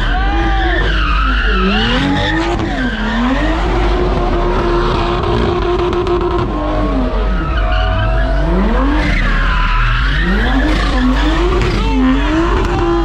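Toyota Supra doing donuts: the engine revs up and down over and over, holding high for a couple of seconds about four seconds in, while the rear tyres spin and squeal against the asphalt.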